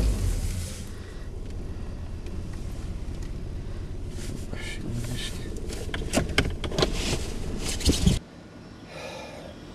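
Car engine idling just after starting, heard from inside the cabin: a steady low hum with a few sharp clicks and knocks. It cuts off suddenly about eight seconds in.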